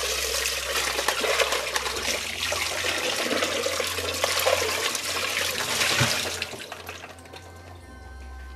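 Kitchen tap running into a sink as a clear plastic food processor bowl is rinsed under it, water splashing in the bowl; the water stops about seven seconds in.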